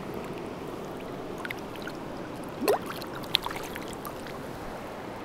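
Shallow river water running steadily over gravel. Two brief sharper sounds come a little past halfway as a chinook salmon is released from the hands and swims off.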